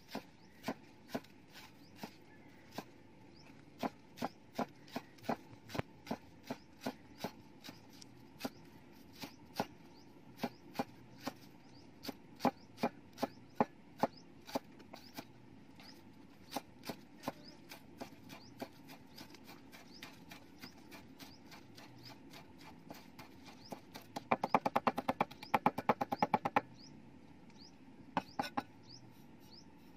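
Knife chopping green onions on a wooden block: sharp knocks of the blade on the wood, about two or three a second at first and then more spaced out, with a quick run of rapid chops near the end.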